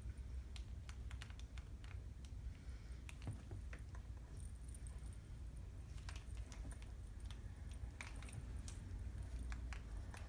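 Faint, irregular small clicks and rustles of hair being handled and wound around a curling wand, over a low steady hum.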